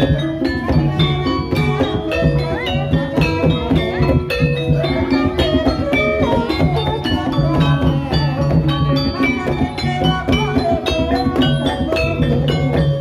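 Live Javanese gamelan music for an ebeg horse dance, played continuously: struck metal keyed instruments sound many quick pitched notes over drums and a repeating low tone.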